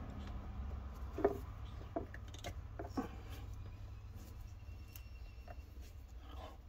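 Hands fitting a brass push-to-connect cap onto a cut plastic water line: small clicks and knocks about one, two and three seconds in, with rubbing of the tubing, over a low steady hum.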